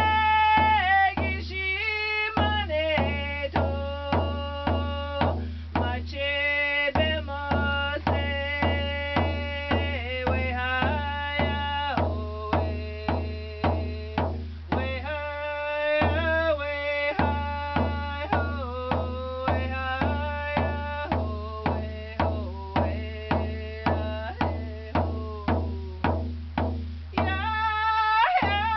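A woman singing in a high voice while beating a hand-held hide frame drum with a stick, a steady beat of about two strokes a second.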